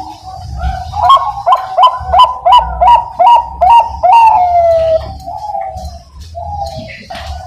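Zebra dove (Bangkok-type perkutut) singing: a rapid run of about nine short, clipped coos, roughly three a second, ending in a longer note that falls in pitch, with softer cooing before and after.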